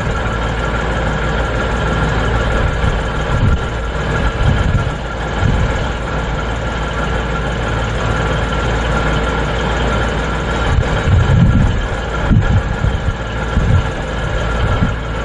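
Diesel train engine idling steadily out of sight, a constant hum with several held tones over a low rumble that swells now and then.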